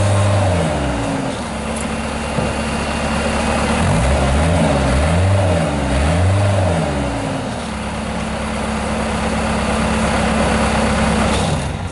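Naturally aspirated Kubota diesel engine of a 2007 Bobcat S175 skid steer loader. The revs drop early on, then it is revved up and down a few times and settles back to a steady run. It cuts off near the end.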